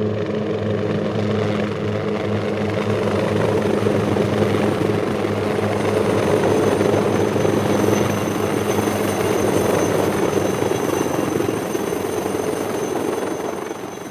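Turbine helicopter in flight: a steady rotor beat over a dense engine rush, with a high turbine whine that strengthens from about halfway and the whole sound starting to fade at the very end.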